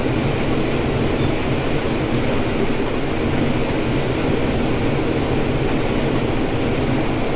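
Combine harvester running with a loud, steady rumble and a low engine drone, with no change in pace.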